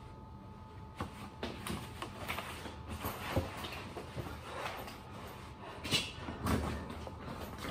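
Light handling noises: scattered soft knocks, clicks and rustling as a sneaker is pulled on, a backpack is swung onto the shoulders and a rolling suitcase's handle is taken hold of. The sharper knocks come near the end.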